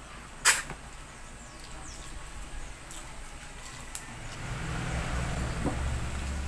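Eating by hand: barbecued chicken chewed and torn apart, with one sharp loud click about half a second in and a low steady rumble setting in from about four seconds in.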